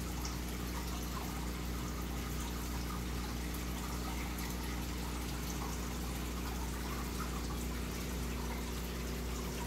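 Aquarium water bubbling and trickling steadily from a rising stream of air bubbles, over a constant low hum from the tank's pump.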